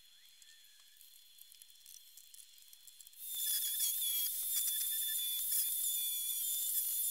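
Near quiet for about three seconds. Then a small handheld rotary tool with a cutting disc starts up and runs with a steady high-pitched whine, grinding away a little of the jointer's fence to clear the planer blade.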